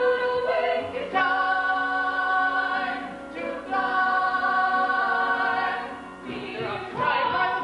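A musical-theatre ensemble singing together in chorus, holding two long sustained chords in a row, then starting a new phrase near the end.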